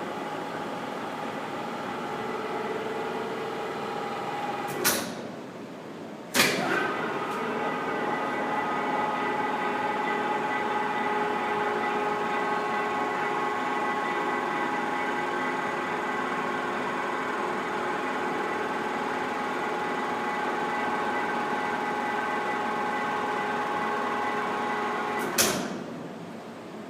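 Logemann model LHD hydraulic baler running with a steady mechanical hum made of several steady tones. It is punctuated by sharp knocks: one about 5 s in, after which the hum drops, and another about a second and a half later, after which it comes back louder. A third knock near the end is followed by the sound dying away.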